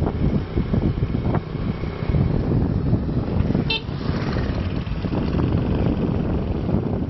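Wind buffeting the microphone over road traffic noise, with a short horn beep about three and a half seconds in, then a motorbike engine passing close by.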